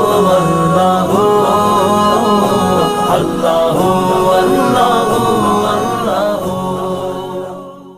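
Devotional naat sung without instruments: layered voices chanting and humming held notes, fading out near the end.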